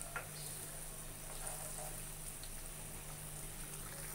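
Thin fish curry boiling in a pan: a steady bubbling hiss, with a light tap of a spatula just after the start.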